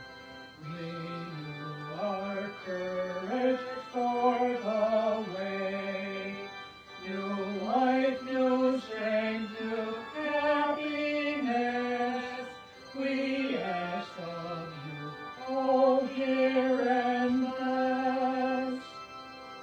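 A slow hymn sung with long held notes that step from one pitch to the next.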